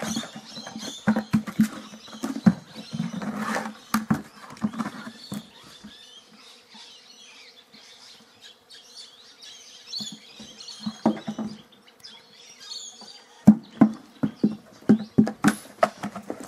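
A plastic flower pot being knocked about and dragged over dirt by a dog at play: bursts of quick knocks and scuffs, a quieter stretch midway, and a dense run of knocks near the end.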